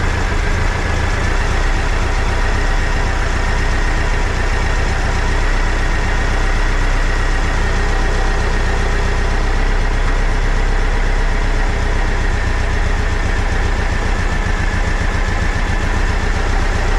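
Air-cooled VW Bus engine on dual Weber 48 IDA carburetors idling steadily while its carburetors are tuned at idle. A faint steady high whine runs above the engine and rises slightly about a second in.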